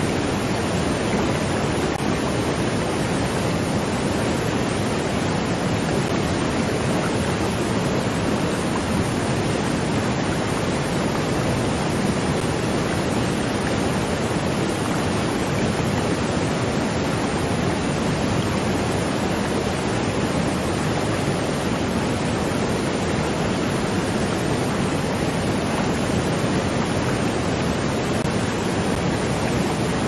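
Waterfall: a steady, unbroken rush of falling water, fullest in the low and middle range, with no separate splashes or changes.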